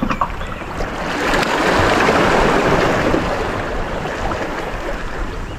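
Seawater washing in among shoreline boulders: a rushing hiss that swells about a second in, is loudest in the middle, and fades toward the end.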